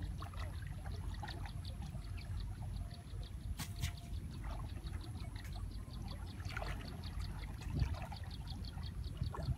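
Water trickling and splashing as a cast net is hauled in by hand through shallow river water, over a steady low rumble. A fast, even ticking of about five a second runs in the background.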